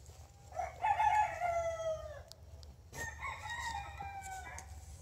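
A rooster crowing twice, each crow a long call that falls in pitch; the first, starting about half a second in, is the louder.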